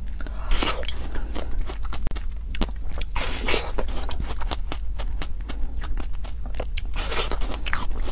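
Close-miked eating sounds: bites into a red, bird-shaped treat on a stick, followed by chewing with wet mouth clicks. The louder bites come about half a second in, around three seconds in, and again near the end.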